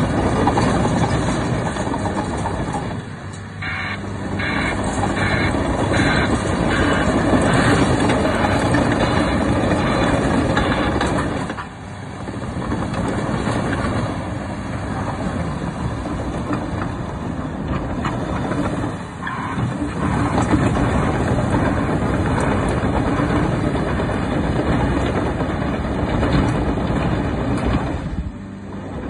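Caterpillar 953D track loader driving and turning, its diesel engine running under load with the steel tracks clanking. The sound drops off briefly four times.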